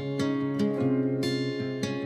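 Background music of plucked strings, with new notes struck about two or three times a second over held lower notes.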